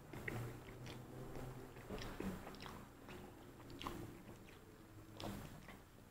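A person chewing and biting food close to the microphone: quiet, wet mouth sounds with scattered small clicks.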